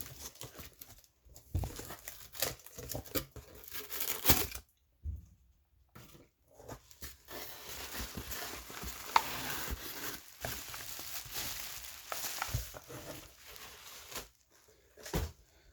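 A shipping package being opened by hand: packaging tearing and crinkling, with scattered knocks and handling noises and a short pause about five seconds in.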